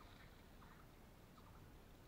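Near silence: a faint outdoor background with a few faint, short ticks or chirps.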